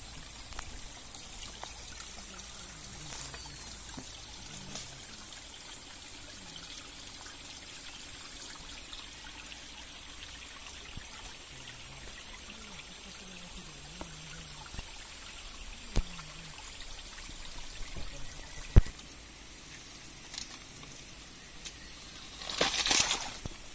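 Small trickle of water running over mud and stones from a hillside seep. Two sharp clicks come about two-thirds of the way through, and a brief rustle near the end.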